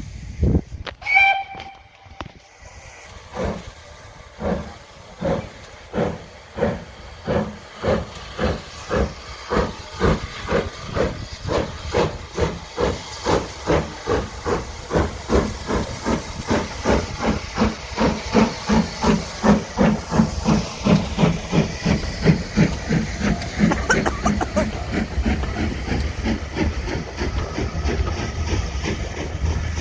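Steam locomotive pulling away. A short whistle about a second in, then exhaust chuffs that start slow and quicken steadily to two or three a second, blurring into a continuous hiss and rumble near the end.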